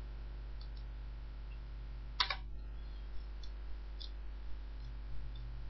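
Computer mouse clicking over a steady low electrical hum: one clear click a little over two seconds in and a few fainter ones.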